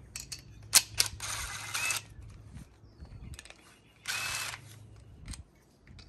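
DeWalt cordless impact driver with a 10 mm socket running in two short bursts on the fuel pump bracket bolt, the first about a second long and the second shorter, near four seconds in. A sharp click comes just before the first burst.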